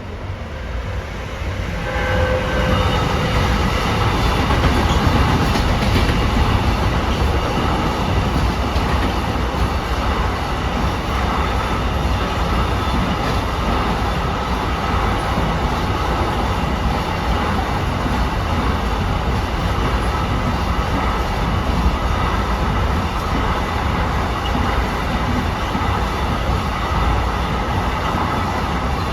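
A train passing over the level crossing: a steady rumble of wheels on rail with some clickety-clack. It swells about two seconds in and keeps up almost to the end.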